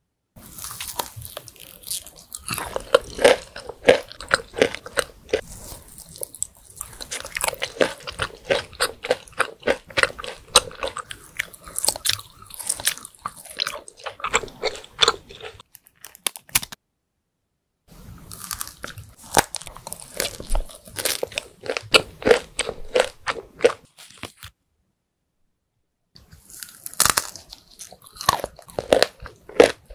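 Close-miked biting and chewing of Turkish roll lokum, a soft, chewy delight with nut pieces inside, rolled in coconut flakes or crushed pistachios. There are many quick crunches and sticky, wet mouth sounds, and the sound cuts out to silence twice.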